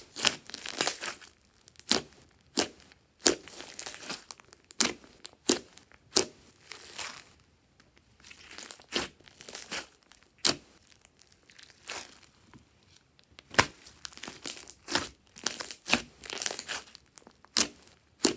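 Hands squeezing and pressing thick glossy slime studded with foam beads: irregular sharp, sticky pops and crackles as trapped air pockets burst, with a few quieter spells between.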